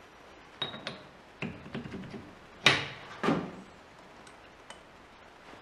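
Metal clinks and knocks from a steel boring bar and an Allen key being handled while the bar is fitted into a milling machine's boring head: a scatter of small clicks, with the two loudest knocks about halfway through.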